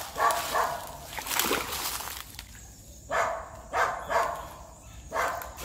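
A hooked tambaqui splashing and sloshing at the surface close to the bank as it is fought in on rod and line. Over it, an animal gives about five short calls, about a second apart.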